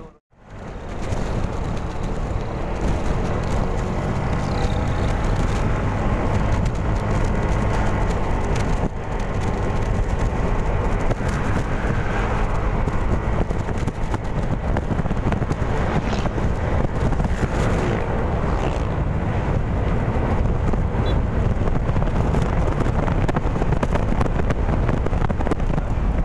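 Yamaha Mio i 125 scooter's single-cylinder engine and CVT running steadily while riding on the road, fitted with a 1000 rpm clutch center spring, with wind noise on the microphone.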